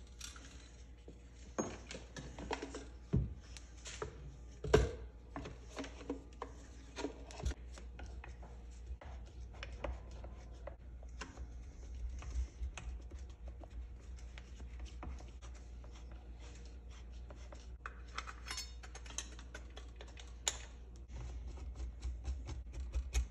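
Irregular clicks, taps and scrapes of a plastic recoil starter housing and a screwdriver being handled and fitted on a small two-stroke engine, with one sharp knock about five seconds in, over a low steady hum.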